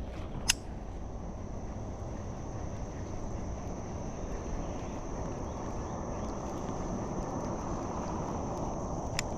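Steady rush of a high, fast-flowing creek current, with a constant high insect drone above it. A sharp click about half a second in and another near the end.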